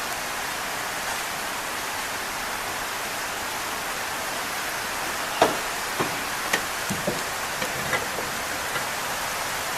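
Steady rain falling, an even hiss. From about halfway, a few sharp knocks and clicks.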